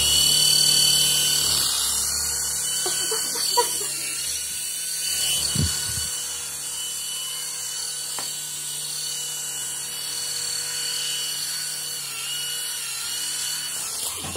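Tiny electric motors and propellers of an LED flying ball toy spinning with a steady high-pitched whine. A few light knocks sound over it.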